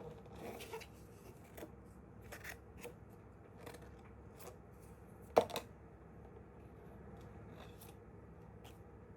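A string of short, irregular clicks and brief scraping strokes, with one sharp click about five and a half seconds in.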